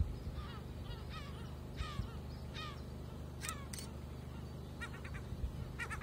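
Gulls calling: a string of short, harsh calls repeated every half second to a second, over a low, steady rumble.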